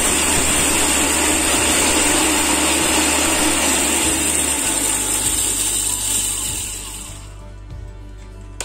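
Electric mixer grinder running at full speed, dry-grinding chana dal, urad dal and dried red chillies in its steel jar. The motor runs steadily, then winds down about seven seconds in, with a single click near the end.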